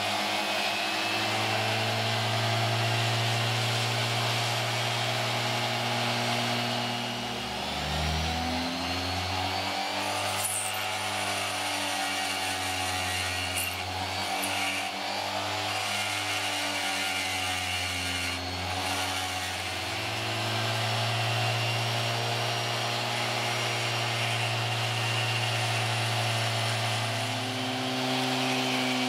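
Flexible-shaft rotary tool (Dremel-type) running steadily with a diamond burr grinding wet Welsh slate: a motor whine with a gritty grinding hiss. Its pitch dips and recovers a few times as the burr is worked against the stone.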